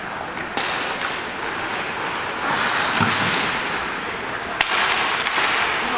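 Ice hockey play: a steady scraping haze of skates on the ice, broken by several sharp clacks of sticks and puck against the boards, the loudest about four and a half seconds in.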